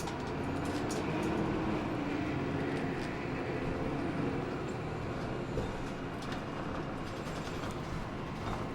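Hino Blue Ribbon II city bus driving, heard from inside the passenger cabin: steady engine and road noise, with a whine rising in pitch over the first few seconds.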